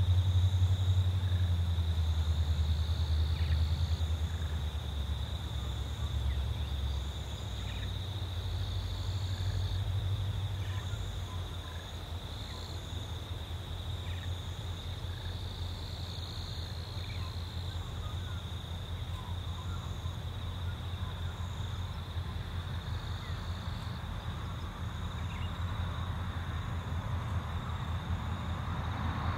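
Low rumble of a freight train's diesel locomotives working in the distance, heaviest for the first several seconds and then easing to a softer throb. Insects buzz with a steady high note and a fainter higher chirp repeating every second or two.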